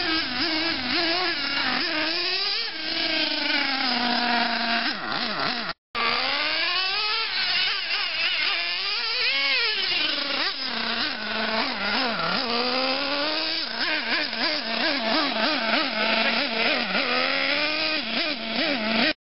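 LRP .28 two-stroke nitro engine of a Losi Aftershock RC monster truck, revving up and down over and over as the truck is driven, its pitch rising and falling with the throttle. The sound drops out for a split second about six seconds in.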